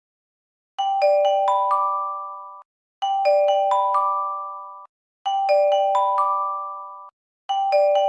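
Japanese J-Alert emergency alert chime: a quick run of about five bell-like notes that then ring on together and fade, played four times in a row about two seconds apart. It starts about a second in and signals an incoming emergency alert.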